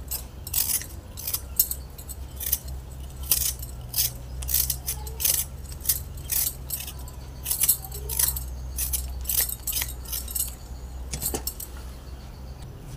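A hand peeler scraping a raw potato in short strokes, about two a second, with a light jangling. The strokes stop about a second and a half before the end, over a steady low hum.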